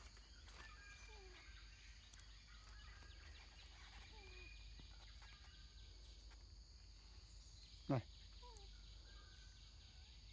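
Faint outdoor ambience: a steady high insect drone, with short, faint falling bird calls repeating every second or so. One brief loud sudden sound stands out about eight seconds in.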